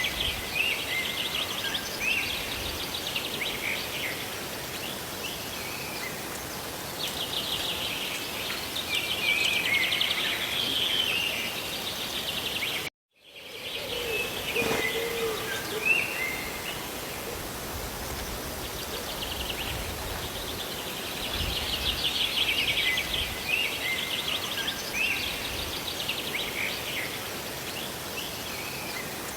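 A steady rush of rain and falling water with songbirds chirping over it in repeated rapid trills and short calls. The sound cuts out completely for a moment about halfway through, then comes back.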